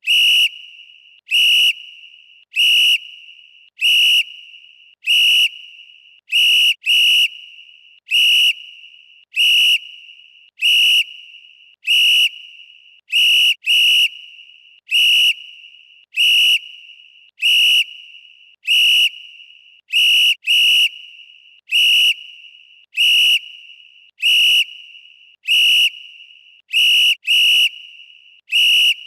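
Referee's whistle blown in short, sharp, high blasts, about one a second, now and then two in quick succession. Each blast is followed by a short fading echo.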